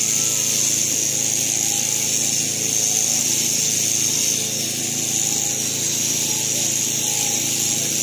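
Electric sheep-shearing handpiece running steadily, a high whine over a low hum, as it clips wool from a Merino ram's neck.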